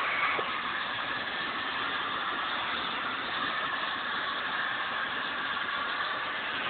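John Deere 6230 tractor running steadily while mowing hay, with an even engine sound that does not change.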